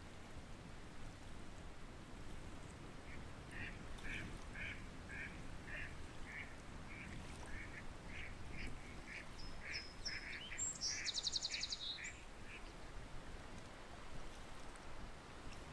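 Ducks calling, a run of short repeated calls about two a second for roughly nine seconds. Near the end of the run there is a brief, higher, rapid trill, over a steady low background noise.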